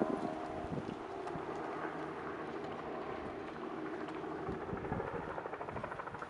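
Outdoor ambience of wind buffeting the microphone over a motor running somewhere off, which takes on a fast, even pulsing in the last second or so.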